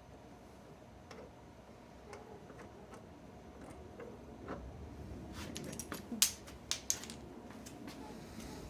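Light clicks and ticks of hand tools working on car door hardware, with a cluster of sharper clicks a little past halfway, the loudest two about half a second apart.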